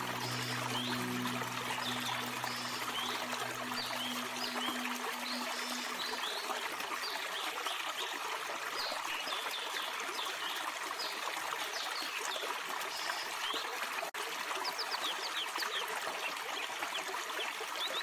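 Small forest stream splashing and trickling steadily down a rocky cascade, with short high-pitched chirps scattered throughout. Soft low music tones fade out in the first few seconds.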